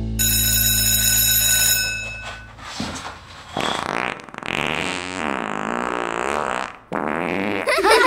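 A short bright chime opens, then comes a cartoon fart sound effect: one long blat of about four seconds that wavers up and down in pitch.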